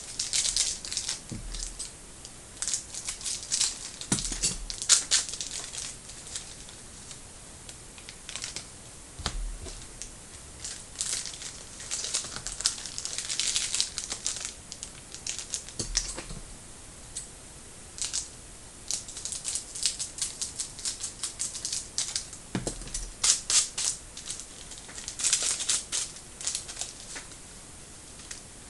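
Trading card packs and cards being handled: crinkling wrappers and flicking card edges in irregular bursts of clicks and rustles, with short quiet gaps between them.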